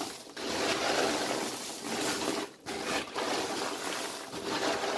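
Popcorn with a baked sugar-and-butter coating, stirred by a gloved hand in a plastic tub: a dense rustling crunch that comes in sweeps, with a few short breaks between strokes.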